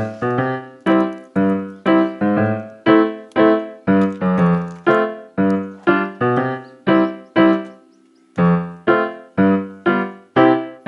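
Background music on a piano-like keyboard: single notes struck about two a second, each dying away, with a short break about eight seconds in.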